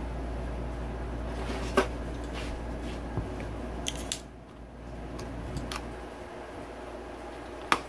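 A handful of sharp plastic clicks and snaps as a cut-out piece is worked and pulled free of a motocross side number plate with a hand tool, the loudest about two seconds in and near the end, over a steady low hum.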